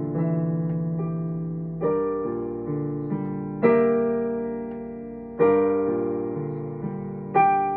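Solo piano playing slow, sustained chords. A new chord is struck about every two seconds and left to ring and fade, with a few softer single notes in between.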